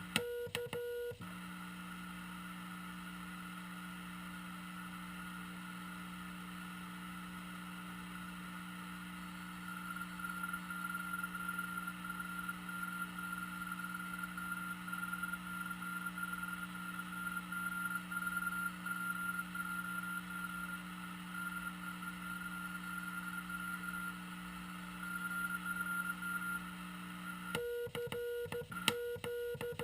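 Morse code (CW) heard through a Frog Sound QRP CW transceiver tuned to the 40 m band: keyed beeps for about the first second and again near the end. In between comes a steady whistle over band hiss with a low hum underneath.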